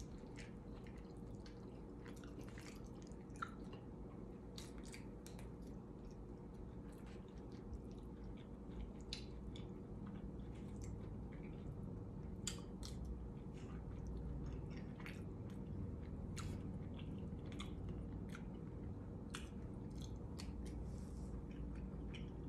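A person chewing and eating, with many small scattered mouth clicks, over a steady low room hum.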